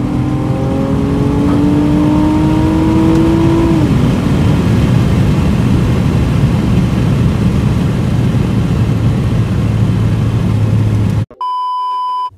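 Honda Accord V6 engine at full throttle heard inside the cabin, its pitch climbing and dropping at upshifts, once right at the start and again about four seconds in. After that comes steady engine and road noise at speed. Near the end it cuts abruptly to a steady one-second test-tone beep.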